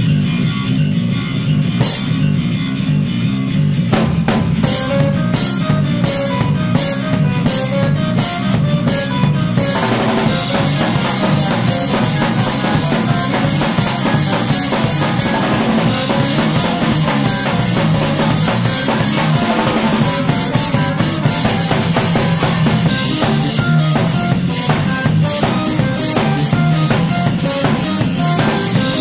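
Electric bass and drum kit playing instrumental music. Over a heavy low bass line, evenly spaced cymbal hits come about twice a second at first. About a third of the way in, the drums break into a dense beat with busy cymbals.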